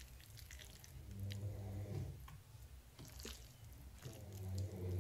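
Soft squishing of wet lauki-and-besan kofta batter being pressed and rolled into balls by hand, with a few light clicks over a low steady hum.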